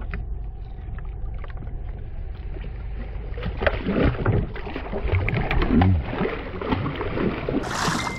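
A channel catfish thrashing and splashing at the water's surface beside the boat as it is released, in a burst of splashes from about three and a half to six seconds in, over a steady low rumble.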